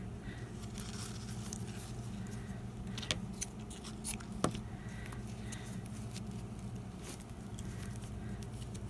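Scissors snipping satin ribbon amid quiet handling of ribbon and fabric: a few sharp clicks between about three and four and a half seconds in, over a steady low hum.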